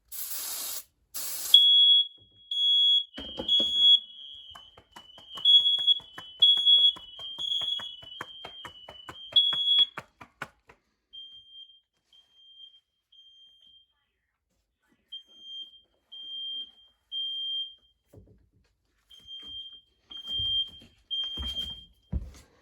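Aerosol smoke-tester can sprayed in two short hissing bursts. A smoke alarm then sounds in the standard temporal-three pattern: three high beeps, a pause, repeated. For the first several seconds a second alarm beeps alongside at a slightly different pitch; after about ten seconds only fainter three-beep groups go on, with a few low knocks near the end.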